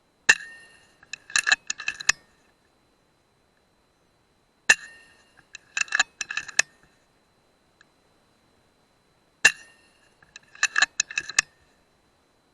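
Air rifle firing, a sharp crack with brief metallic ringing, followed about a second later by a quick run of metallic clicks; the sequence comes three times, about five seconds apart.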